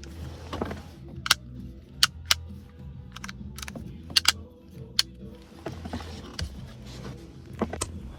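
A dozen or so sharp plastic clicks and snaps at irregular intervals as the headlight switch assembly of an Infiniti G35 is handled and put back together, over a low steady hum.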